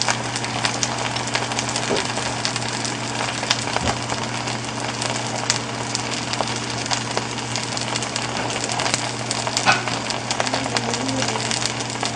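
Food frying in oil in a pan: a steady sizzle full of small crackling pops.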